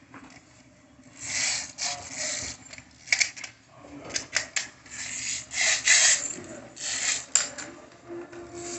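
Plastic toys being handled and pushed across a tiled floor: irregular scraping and rubbing, with a quick run of sharp clicks partway through.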